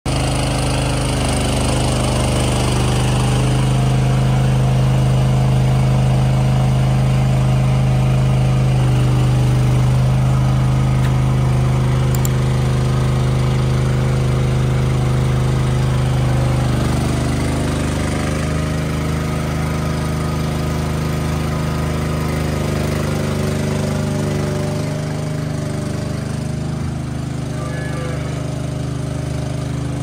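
A motor or engine running steadily with an even, low hum; its tone shifts slightly about halfway through.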